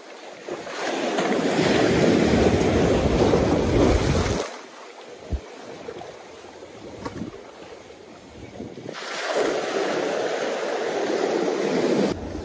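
Surf washing in against concrete wave-dissipating blocks in two long surges, with wind noise on the microphone. Quieter between the surges, with a few small knocks.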